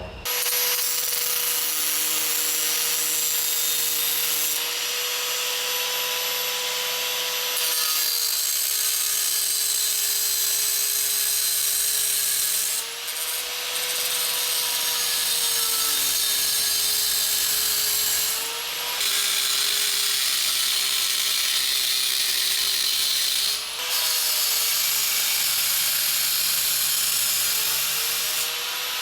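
Electric grinder cutting away excess metal plate: a steady motor whine with a gritty hiss, the pitch sagging as the wheel is pressed into the metal and picking up when it is eased off, with short lifts off the work about thirteen, nineteen and twenty-four seconds in.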